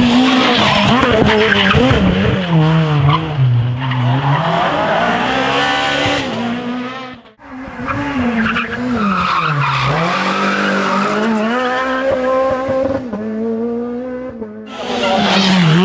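Rally car engines revving hard through a tight corner: the pitch drops as the car brakes and shifts down, then climbs again under full throttle. The sound cuts off abruptly a little past seven seconds in, and a second car follows with the same fall-and-rise in pitch.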